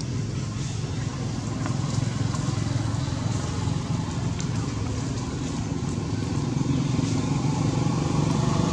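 Low, steady rumble of a motor vehicle engine running, growing a little louder near the end.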